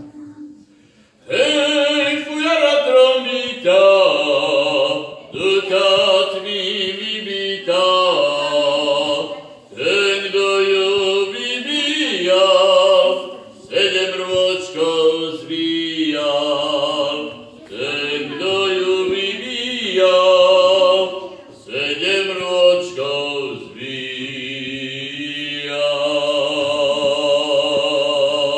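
Fujara, the Slovak long wooden overtone flute, played in a folk melody: breathy phrases of about two seconds, each stepping between high overtones over a low tone, with short breaks for breath.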